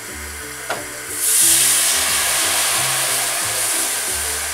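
Warm milk poured into a hot butter-and-flour roux in a pan, hissing loudly as it hits the hot fat, starting about a second in after a light click; background music plays throughout.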